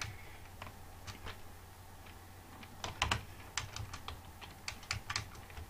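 Computer keyboard keys being typed: a few scattered keystrokes, then a quicker run of them from about three seconds in. A low steady hum sits underneath.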